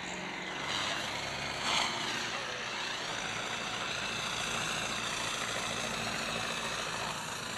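Tractor diesel engines running steadily under heavy load as two tractors chained back to back pull against each other in a tug-of-war, with a brief louder swell a little under two seconds in.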